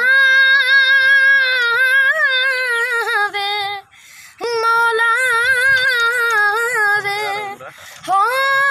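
A young boy singing unaccompanied in a high voice: long held, wavering notes of a Punjabi song's opening, in two long phrases with a short breath between and a third beginning near the end.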